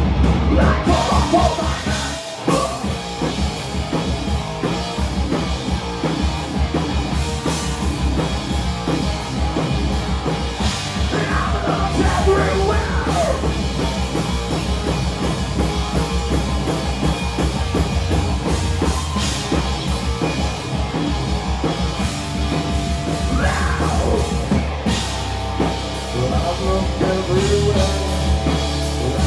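Heavy metal band playing live: distorted electric guitars, bass and drum kit.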